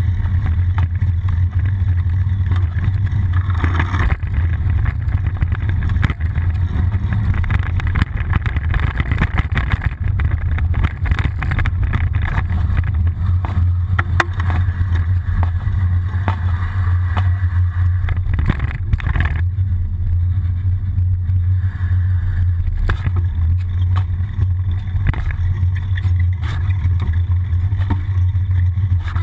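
Bicycle ride heard through a frame-mounted GoPro in its housing: a steady low drone of wind buffeting and road vibration, with scattered knocks and rattles from bumps in the road.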